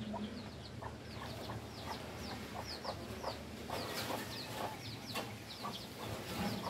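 Birds calling: a steady run of short, high, falling chirps, several a second, with shorter lower calls mixed in among them.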